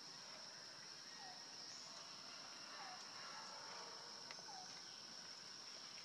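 Insects droning in one steady high-pitched tone, with three faint, short falling calls from an animal at about one and a half second intervals.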